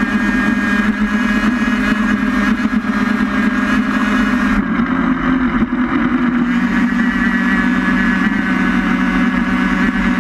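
A small racing vehicle running fast on an asphalt road, heard from on board: a loud, steady running noise with a constant low hum. The higher part of the sound drops away for a couple of seconds near the middle.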